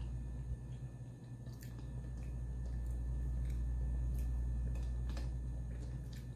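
Faint scattered clicks of a fork against a plate and quiet eating sounds over a steady low hum.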